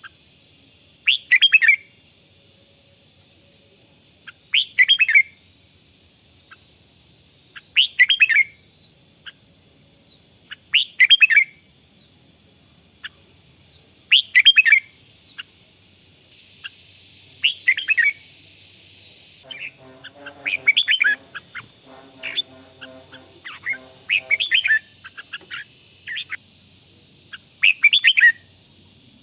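Red-whiskered bulbul singing short, bright phrases over and over, about one every three seconds, with a few quicker phrases in the second half. A steady high-pitched whine runs underneath.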